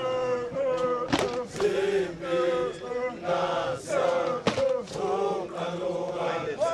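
Male voices chanting a traditional song in short repeated phrases held on a few notes, with a few sharp knocks or claps among them.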